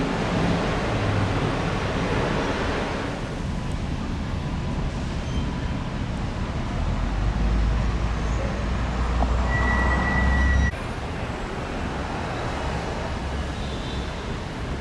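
Road traffic going by, with a heavy low rumble building about seven seconds in and cutting off suddenly near eleven seconds, a brief high whine just before the cut.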